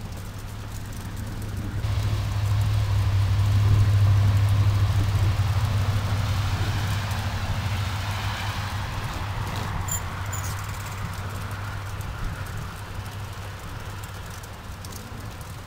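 A vehicle passing out of sight: a low rumble and hiss swell over the first few seconds, peak, then slowly fade away.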